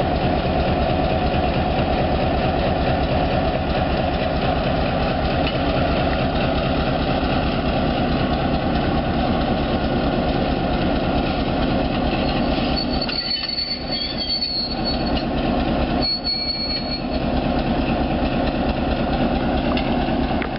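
EMD GP7 diesel locomotive, its 16-cylinder two-stroke engine running steadily as it pulls a short string of passenger cars slowly along the track, wheels rolling on the rails. A thin, high wheel squeal comes in twice about two-thirds of the way through.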